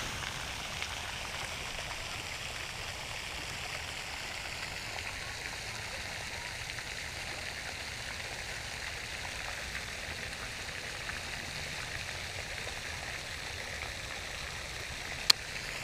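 Steady rushing noise like running water, with one sharp click near the end.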